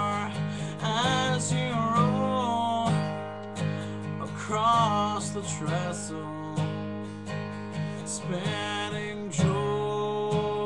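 Steel-string acoustic guitar strummed in a steady rhythm. A man's voice sings over it in several sustained phrases with vibrato.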